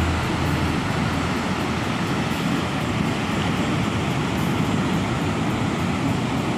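Steady roar of ocean surf on the beach.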